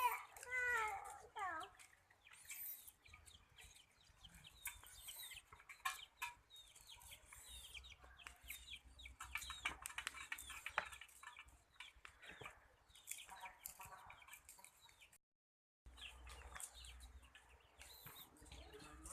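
Chickens clucking, with many short calls scattered throughout and the sound dropping out briefly about fifteen seconds in.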